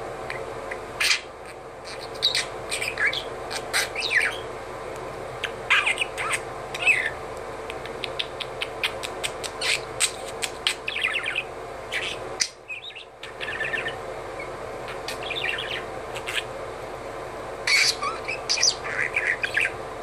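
Budgerigar mumbling and chattering: a run of quick chirps, clicks and short warbles, with a brief pause about twelve seconds in.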